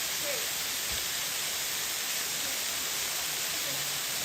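Steady rushing of a waterfall pouring into its pool, an even unbroken roar of falling water.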